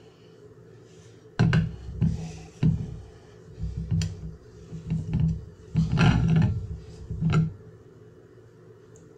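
Glass jar being handled and rubbed down with a cloth: irregular scuffing and rubbing with a few sharp knocks, starting about a second and a half in and stopping near the end.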